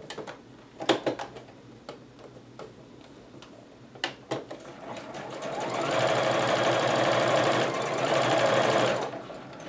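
Domestic sewing machine stitching with a twin needle. After a couple of sharp clicks, it speeds up about halfway through, runs steadily for about three seconds, then stops near the end.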